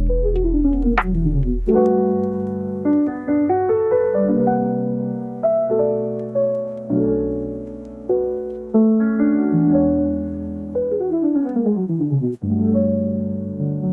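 Background piano music, with quick descending runs of notes near the start and again about eleven seconds in.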